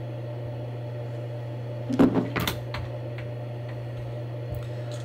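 A steady low hum, with a quick cluster of sharp knocks and clicks about two seconds in and a faint tap near the end.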